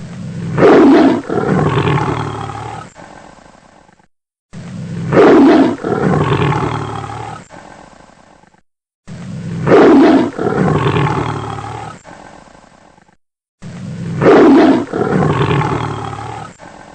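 Tiger roaring, the same roar recording looped four times. Each roar starts loud and fades over about four seconds, with a brief silence before the next.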